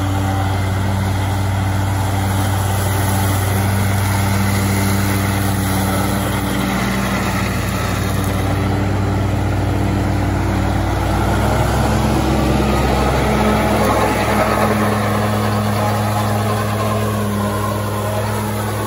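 Farm tractor's diesel engine running steadily while pulling a Krone mower through standing grass. It grows a little louder as the tractor passes close about two-thirds of the way through, then eases off near the end.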